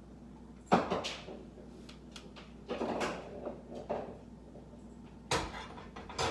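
A series of sharp knocks and clatters, about six in all, of kitchen things being handled and set down, the loudest near the start and another hard knock near the end.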